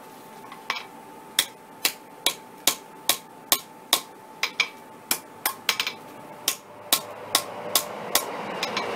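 Hand hammer striking the hot end of a 10 mm round mild steel bar stood upright on an anvil, upsetting it. The blows are sharp and even, about two to three a second, starting shortly after the beginning.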